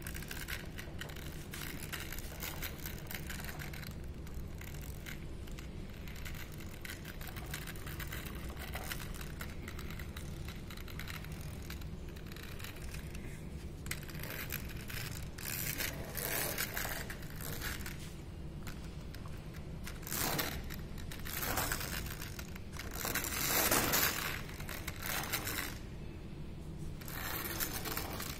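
Plastic toy backhoe loader being handled and rolled across a tabletop: its plastic wheels and body scrape and rattle in several bursts through the second half, over a steady low background hum.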